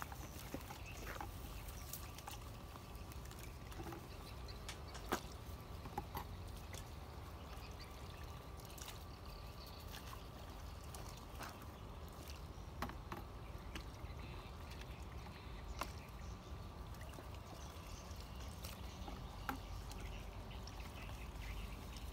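Metal ladle scooping food out of a plastic bucket and knocking against the plastic bowls: scattered light clicks and knocks, two louder ones about five and six seconds in, over a steady low rumble.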